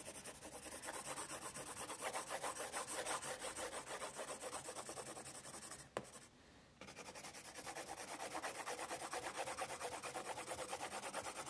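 Graphite pencil shading on drawing paper: quick back-and-forth scratchy strokes, about five a second. The strokes stop for under a second about six seconds in, then resume.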